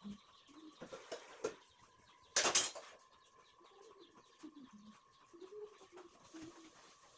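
A dove cooing repeatedly in short, low coos. A brief loud burst of noise comes about two and a half seconds in.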